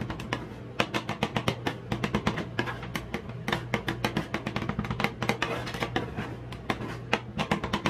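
Two metal spatulas rapidly chopping and scraping ice cream base with noodles on a steel rolled-ice-cream cold plate, a dense, irregular clatter of sharp metal clicks several times a second. Steady low background music runs underneath.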